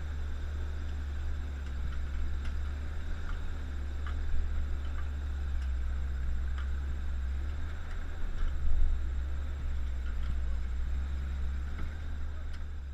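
Vintage Dodge Power Wagon truck driving on a trail: a steady low rumble with light ticks and rattles, and a couple of louder jolts about four and nine seconds in.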